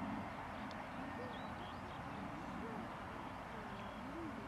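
Distant Boeing 747-200 freighter's four jet engines, a steady rush of noise as it rolls out on the runway just after touchdown. A few short rising-and-falling bird calls sound over it.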